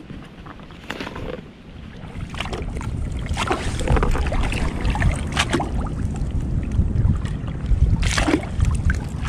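Wind buffeting the action camera's microphone, a low rumble that grows louder after about two seconds, with water sloshing and splashing close by in short bursts.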